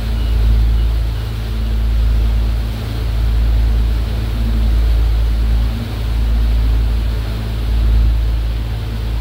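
Motorboat engine droning steadily, with water rushing past the hull and a deep rumble that swells and fades every second or two.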